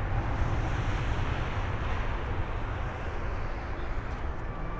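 Korean Air Boeing 747-8's four GEnx jet engines running at low taxi power, heard from a distance as a steady low rumble with a hiss.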